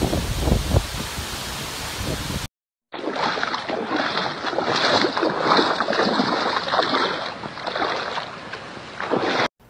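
Hurricane wind and heavy rain, with gusts buffeting the microphone, for the first two and a half seconds. After a short gap comes a different recording: wind over floodwater splashing and sloshing in an irregular, surging way, easing toward the end.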